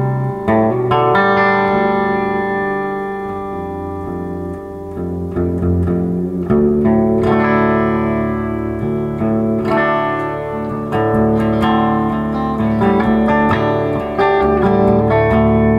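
2013 Gretsch White Falcon G6136T hollow-body electric guitar with Filtertron pickups, played through a Laney amp: chords are struck and left to ring, with a fresh chord every one to three seconds.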